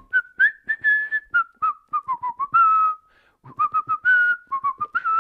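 A man whistling a tune through pursed lips: a run of short notes that step up and down in pitch, with a brief pause about three seconds in.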